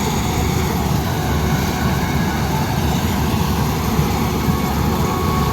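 AVTAR 6500 combine harvester running steadily while harvesting a mung bean crop: a loud, even engine and machinery drone.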